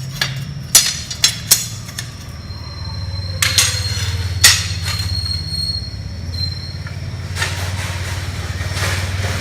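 Clinks and knocks of ceramic tile pieces and a manual tile cutter being handled, with a thin high squeal for several seconds in the middle, over a steady low hum.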